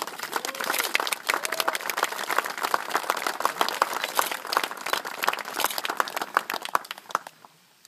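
A small crowd applauding: many hands clapping densely, dying away about seven seconds in.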